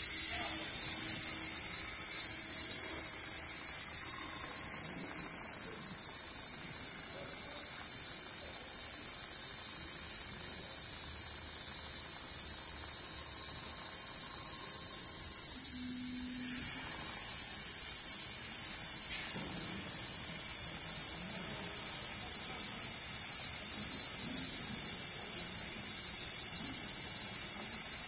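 Richpeace large-format automatic sewing machine running as its gantry head stitches a leather panel held in its clamped frame, heard as a steady high-pitched hiss over a faint mechanical hum.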